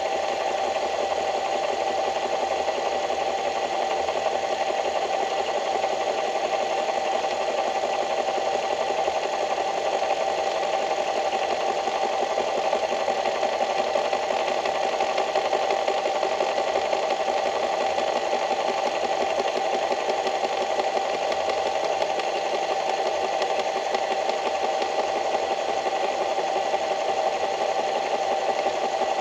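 A small motor running steadily at an even speed, with a fast fine rattle and a constant hum.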